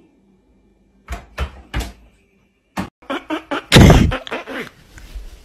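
Three sharp knocks in quick succession, a run of quicker clicks, then one loud bang-like crash a little before the end.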